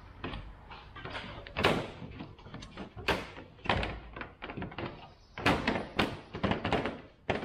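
Hands refitting a part by hand: a run of irregular sharp clicks and knocks, with a quick cluster of them near the end.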